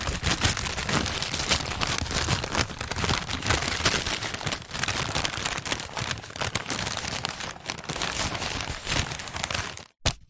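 Brown paper bag being crumpled and handled, a continuous dense crinkling with sharp crackles, stopping abruptly near the end.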